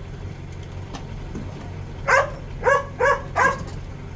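A dog barks four times in quick succession about two seconds in, over the steady low hum of a vehicle engine running.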